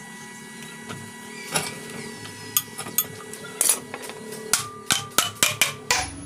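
Light hammer taps on the metal end plate of an electric water pump motor, a quick run of sharp metal knocks starting about four and a half seconds in, after a few scattered clicks. The taps seat the end plate and its newly fitted bearing after the screws are tightened.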